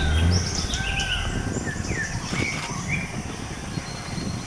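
Several forest birds calling, with short chirps and whistled glides that rise and fall, over a steady forest hiss. A low rumble fades out in the first half-second.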